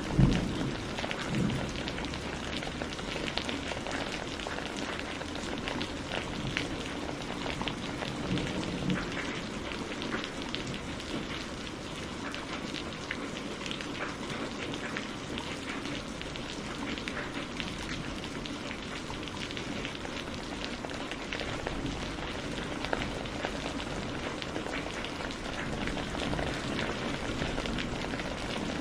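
Steady rain, with many individual drops ticking on a surface. A sharp thunderclap comes right at the start and trails into a low rumble lasting about two seconds; a smaller crack comes about 23 seconds in, and low rumble builds again near the end.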